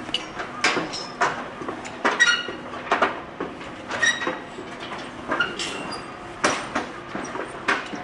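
Footsteps on steel scaffolding stairs and steel deck planks: a metallic clank with each step at a walking pace, several of them ringing briefly.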